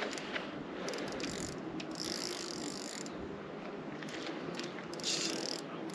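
Fishing reel clicking and ratcheting steadily as a hooked fish is played under load.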